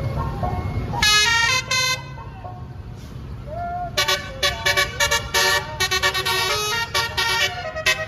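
Tour bus's basuri telolet horn: two loud blasts about a second in, then, from about halfway through, a fast melody of short multi-note blasts. A low engine rumble runs beneath.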